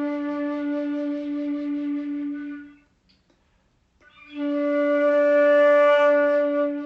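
A wind instrument holding long, steady notes at one pitch: one note fades out a little before halfway, there is a pause, and then the same note comes back and is held through the end.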